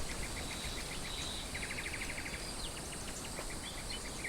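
Outdoor nature ambience of small birds chirping in quick repeated notes, with a fast trill about a second and a half in, over a steady background hiss.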